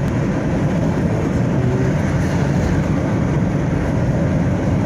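A car driving, with a steady low road and engine noise.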